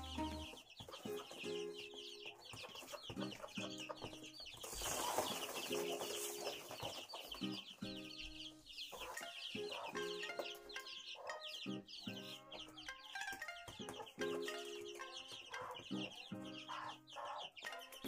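A brood of young chicks peeping constantly in thin, high chirps, with their mother hen clucking, over soft background music. There is a brief rustle about five seconds in.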